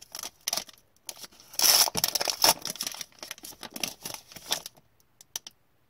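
Foil wrapper of a hockey trading-card pack being torn open and crinkled, loudest about a second and a half in, thinning to a few small crackles near the end.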